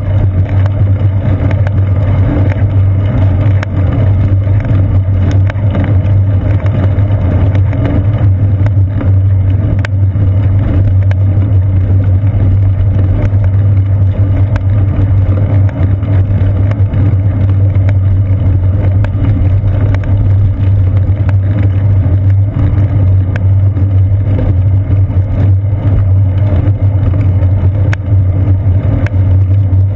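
Steady, loud low rumble of a bicycle rolling over a paved path, with tyre and frame vibration carried through the seat-post camera mount into a GoPro Hero 2.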